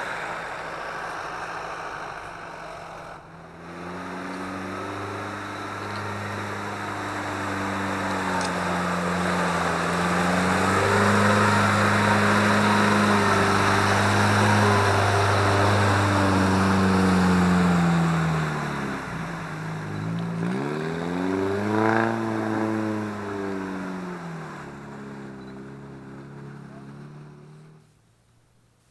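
Off-road SUV engine pulling under load, its pitch rising and falling with the throttle: it sags low about two-thirds of the way through, then climbs sharply again and settles. The sound cuts off abruptly shortly before the end.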